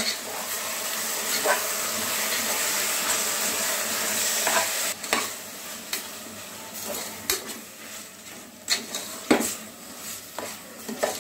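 Raw chicken pieces with onions, tomatoes and spices sizzling in oil in an aluminium pressure cooker as they are stirred with a spatula, the spatula scraping against the pot. The sizzle is steady at first and drops to a quieter hiss about halfway, with sharp scrapes continuing.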